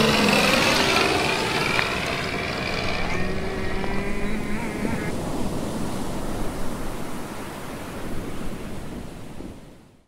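Animated sound effects of ocean waves, with the buzz of small motors, the model plane and speedboat, gliding in pitch as they pass. The motor buzz stops about halfway through and the waves fade out near the end.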